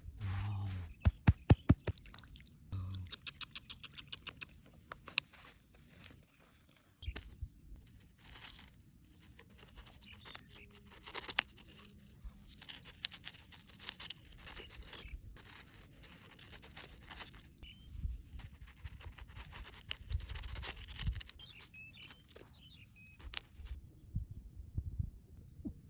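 Close handling sounds: an irregular run of small clicks, taps and scrapes, loudest in a quick cluster in the first couple of seconds.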